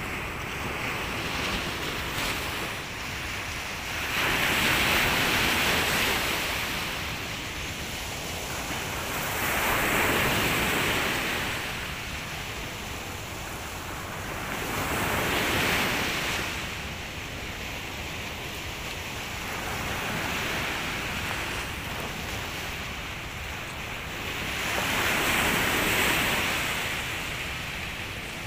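Sea surf on a beach: waves breaking and washing up the sand, swelling and fading about every five seconds.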